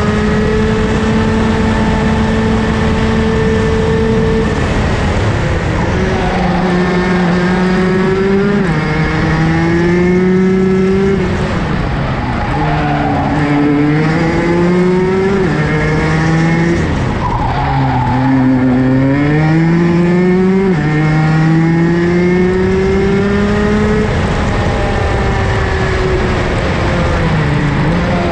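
Rotax DD2 race kart's 125 cc two-stroke engine heard onboard at race speed. Its pitch climbs steadily under throttle, drops sharply several times as the driver lifts or brakes for corners, and climbs again out of each one.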